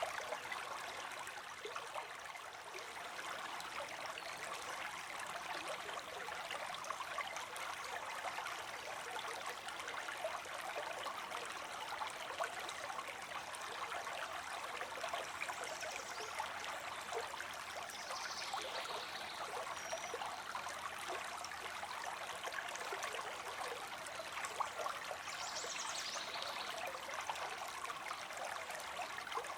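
Creek water streaming steadily: an even rushing hiss with fine trickling.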